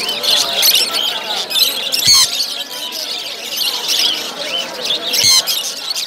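Many caged small birds chirping and squawking at once, a dense chatter of short calls, with two louder squawks about two seconds in and near the end.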